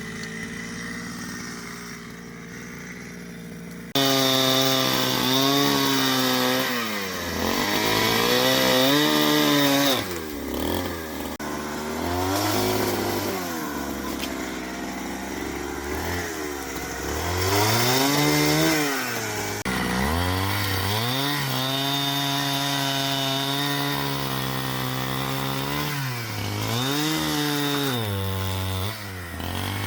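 Two-stroke chainsaw cutting wood, its engine pitch repeatedly dropping and rising again as it loads up in the cut and revs free. It runs quieter and steady for the first few seconds, then gets suddenly louder about four seconds in.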